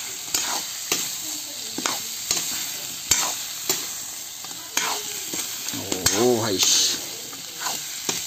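Chicken pieces sizzling as they fry in oil and spice paste in a steel kadai, while a ladle stirs and scrapes the pan in repeated strokes. A short pitched sound rises and falls about six seconds in.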